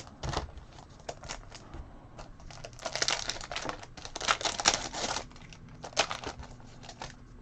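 Foil trading-card pack wrapper crinkling and tearing, in short bursts of crackle that are thickest about three seconds in and again between four and five seconds.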